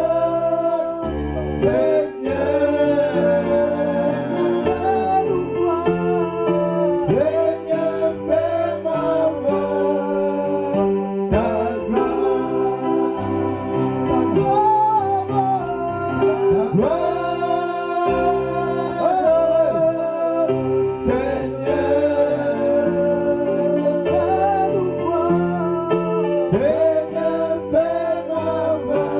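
Live gospel worship song: several voices singing into microphones over an electronic keyboard with a steady beat.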